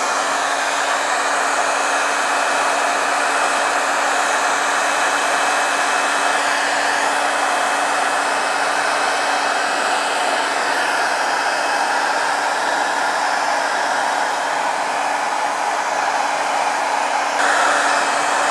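Handheld hot-air blower running steadily: an even rush of air over a constant hum. It is warming Sno-Seal wax so that the wax melts into the leather of work gloves. Its tone shifts slightly near the end.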